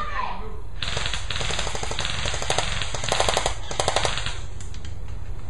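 Airsoft guns firing rapid automatic bursts, starting about a second in, with the loudest bursts near the middle, over a steady low rumble.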